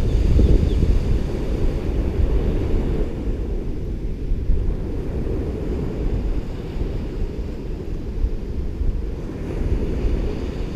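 Wind rumbling on the microphone over the steady wash of ocean surf, easing slightly midway and swelling again near the end.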